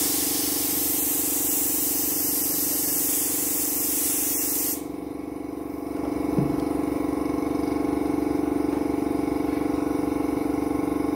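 Gravity-feed spray gun hissing as it sprays colour onto kimono fabric, cutting off abruptly about five seconds in. Under it an air compressor motor runs with a steady hum that grows louder after the spraying stops, with one faint knock about six seconds in.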